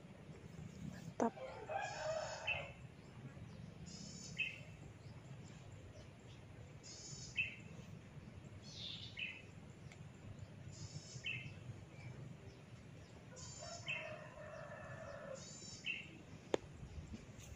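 Short crackly snaps of hair being pulled and cracked, repeating every two to three seconds, with a rooster crowing twice in the background, about a second in and again near the end.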